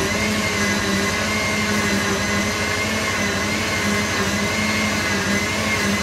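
Kitchen blender running steadily at one speed, a constant motor whine, beating a liquid cake batter to dissolve the sugar and beat the eggs.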